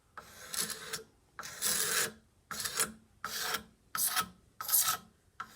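Back-and-forth abrasive strokes on the wooden handle of a mallet, stripping its factory varnish: about seven strokes, roughly one every three-quarters of a second.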